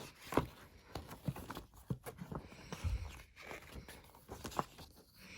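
Album packaging handled by hand: soft scattered taps and rustles of paper and cardboard, with one dull low thump about three seconds in.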